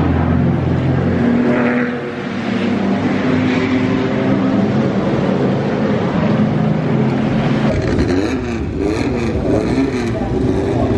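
Historic racing car engines running: a steady idle at first, then from about eight seconds in a deeper rumble with the pitch rising and falling as throttles are blipped on the grid.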